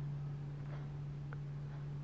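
Quiet room tone with a steady low hum and a few faint, light handling sounds.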